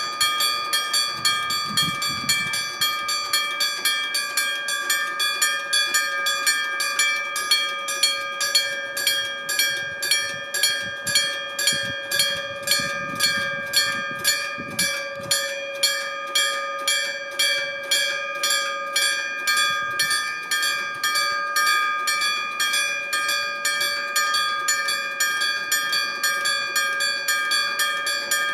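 Electromechanical (denshō-type) level-crossing alarm bell, its hammer striking a metal bell about twice a second, each stroke ringing on into the next. This is the crossing's warning sounding for an approaching train.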